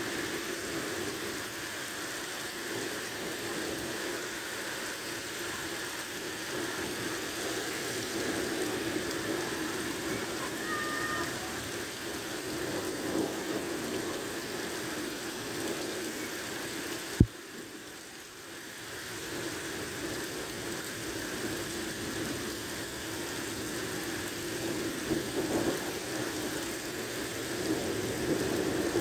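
Heavy rain pouring steadily onto a flooded street. A single sharp click comes a little past the middle, after which the sound dips briefly before the rain returns to full level.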